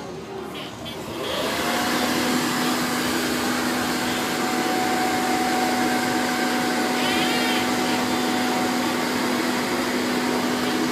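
An electric air blower switches on about a second in, its pitch rising briefly as it spins up. It then runs steadily with a constant hum over the rush of air, the way a blower fills a water-walking ball.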